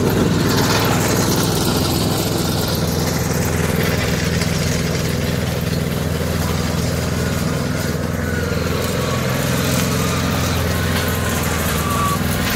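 Walk-behind petrol lawn mower running steadily as it is pushed over the lawn, mowing up fallen dry leaves and small twigs.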